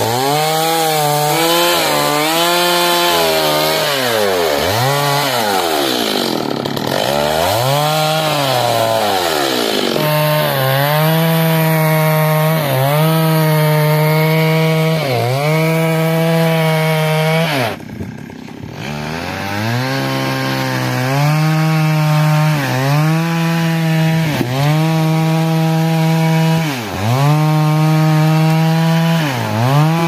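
Two-stroke chainsaw cutting wood, running at high revs with its pitch dropping and climbing back every couple of seconds. The sound drops away briefly about two-thirds of the way through, then the saw runs on.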